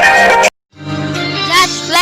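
Music playing, cut off abruptly about half a second in; after a moment's silence different music starts, with a high voice gliding in pitch near the end.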